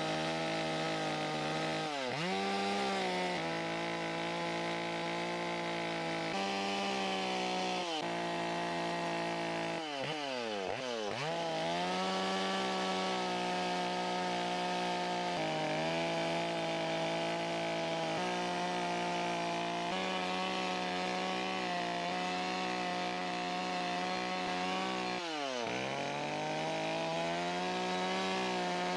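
Chainsaw cutting into wood in side-to-side slough cuts, running at a steady high pitch that dips briefly and climbs back about four times.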